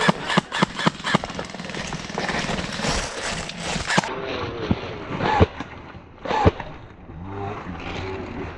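Airsoft rifle firing a quick, irregular string of single shots, about seven in the first second or so, then a couple of isolated shots later on.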